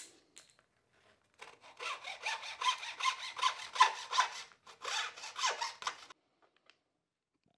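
Hand hacksaw sawing back and forth through a small wooden stick in quick strokes. It pauses briefly about four and a half seconds in, runs on for another second and a half, then stops.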